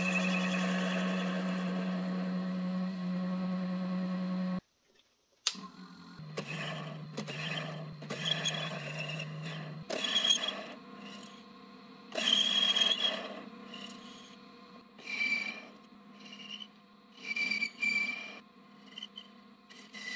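Derbyshire Model A lathe running with a steady motor hum while a carbide insert tool cuts a metal bolt, a continuous scraping sound. It cuts off abruptly about four and a half seconds in; after that the cutting comes as repeated short scraping bursts with a high squeal, over a fainter motor hum.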